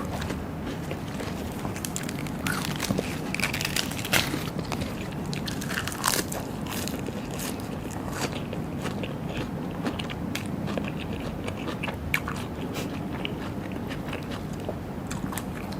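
A person chewing and biting food, with crunching and many short, sharp clicks and smacks scattered throughout.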